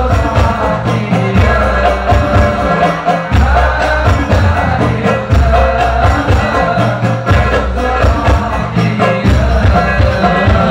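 A male voice sings an Islamic devotional song (sholawat) through a loudspeaker system, accompanied by frame drums and a deep bass drum beating in a steady repeating pattern.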